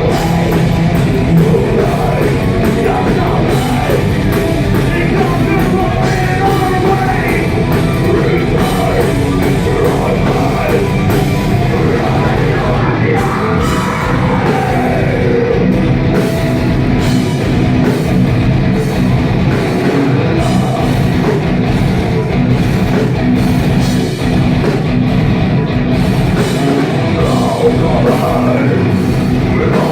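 Heavy metal band playing live, loud and continuous, with vocals. It is recorded on a phone that can't handle the volume, so the sound is distorted.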